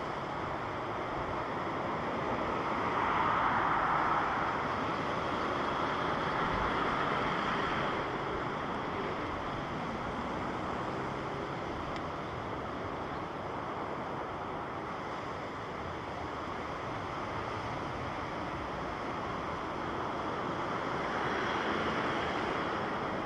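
Jet airliner engine noise at a distance: a steady rush that swells about three seconds in and again near the end.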